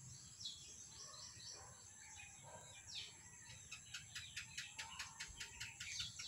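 Faint birds chirping: short high falling chirps, then a quick run of sharp repeated notes, about five a second, in the second half.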